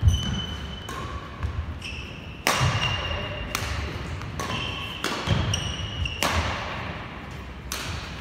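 Badminton rally on a wooden indoor court: sharp racket strikes on the shuttlecock at irregular intervals of about a second, each ringing on in the hall, with sneakers squeaking briefly on the floor and footfalls thudding between shots.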